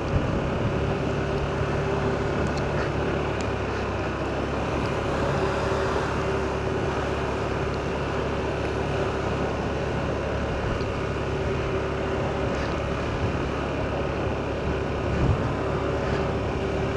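Steady engine and road noise of a car being driven, with a faint hum that comes and goes.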